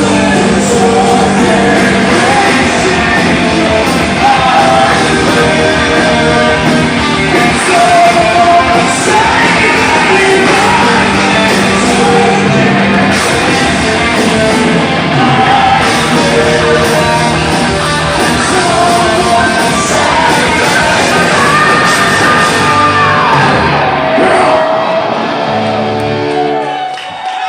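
A loud rock band playing live with yelled, shouted vocals over guitars and drums, the sound of a large room around it. The music thins out and drops in level near the end.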